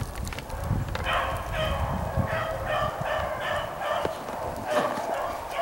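Rabbit beagles baying on a running rabbit, short repeated bawls about three a second from about a second in. A low rumble sits under the first couple of seconds.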